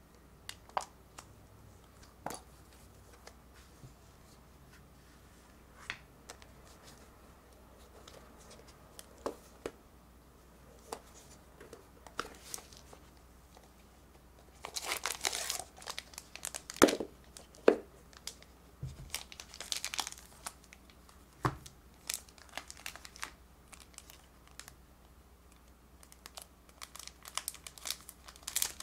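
Scattered light clicks and taps as small game pieces and a card case are handled, then, from about halfway, crinkling of cellophane wrap on a card deck, with tearing as it is peeled open near the end.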